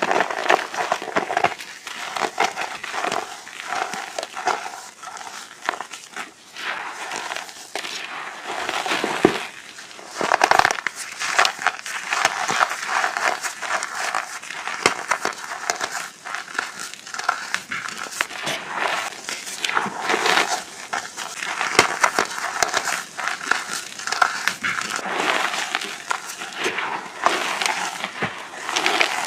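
Crumbly reformed chalk crunching and crackling in a dense, continuous stream of gritty crunches, with a few louder crunches around ten and twenty seconds in.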